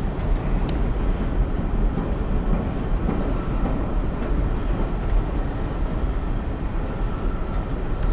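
Train running across the bridge overhead: a steady, heavy rumble, with a faint steady tone joining about three seconds in.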